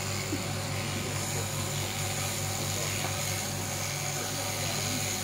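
Electric sheep-shearing machine running steadily as the handpiece cuts through a sheep's fleece: a continuous motor hum with a thin high whine on top.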